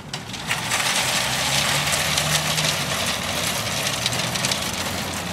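Metal shopping carts, a single cart and a row of four nested carts, rolling across asphalt after a push: a steady clattering rush of wheels and wire baskets that starts right at the push.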